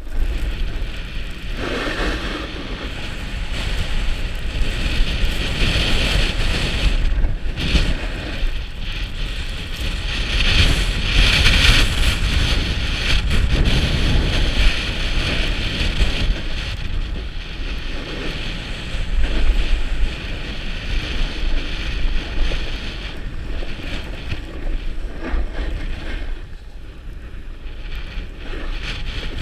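Wind buffeting a helmet-mounted camera's microphone during a fast run down packed snow, with a low rumble under a steady hiss of edges scraping the groomed surface; the rush swells and eases from turn to turn.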